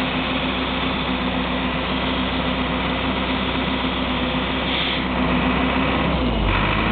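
Hydrovane rotary vane air compressor running steadily with a constant hum, its tone shifting about six and a half seconds in.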